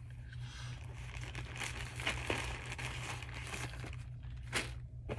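Plastic packaging crinkling and rustling as it is handled and opened, in irregular bursts with one sharper crackle near the end.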